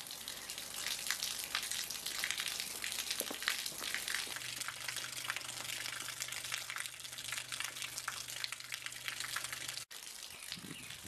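Stream of water pouring from a hose and splashing, a steady crackling hiss. About four seconds in, a steady low hum joins it; near the end the sound cuts out for an instant and the splashing resumes without the hum.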